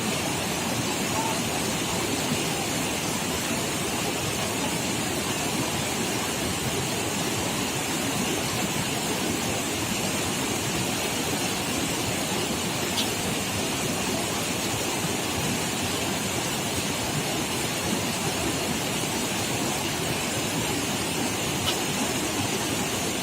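Steady rushing of a fast-flowing river, an even wash of water noise with no change in level.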